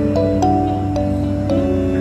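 Background music: soft, gentle instrumental with held notes and plucked tones.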